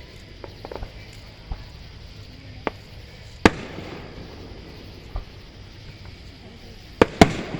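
Fireworks going off in scattered sharp booms. A loud one comes about three and a half seconds in, and two more follow in quick succession near the end, the last trailing into crackling.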